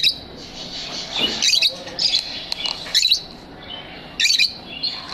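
Lovebirds chirping: loud, high-pitched chirps about once a second over steady softer twittering and chatter.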